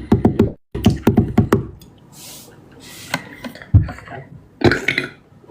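A man burping: a quick run of short bursts in the first second and a half, then a loud, deep burp nearly four seconds in and a shorter one near the end, with clicks and knocks between.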